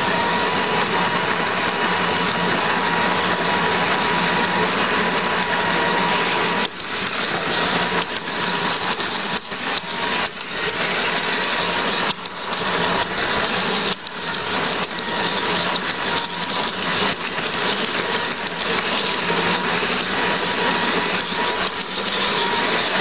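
Garden-scale model train running along its track, with a steady motor and gear whine under wheel and running noise. From about a third of the way in, a run of sharp clicks and brief dips in level break into it.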